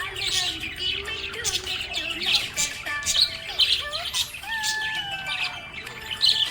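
Budgies chirping and warbling: a steady stream of quick sharp chirps mixed with sliding, wavering whistles.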